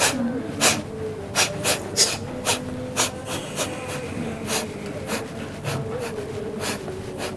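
A person's short, sharp breaths or sniffs, about a dozen at uneven spacing, over a faint steady hum.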